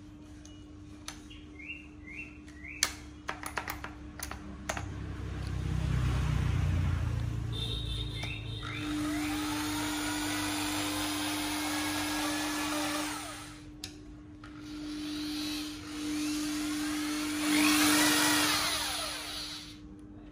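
Hitachi 750 W corded rotary hammer drill run without load in short trigger pulls: the motor whines up, cuts off, and starts again twice, the last run revving up and down with the variable-speed trigger. Before that come handling clicks and a brief low rumble.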